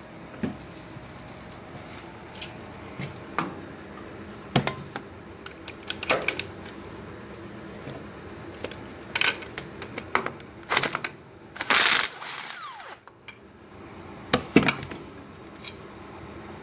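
Scattered metallic clinks and knocks of hand tools working on a tractor's steel parts and fittings, uneven and a few seconds apart, with a short rushing noise about twelve seconds in.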